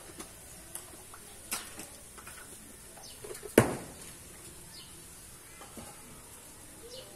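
Wood fire and roasting food popping and crackling in a wok on a clay stove: a few sharp pops, the loudest about three and a half seconds in, over a steady high hiss.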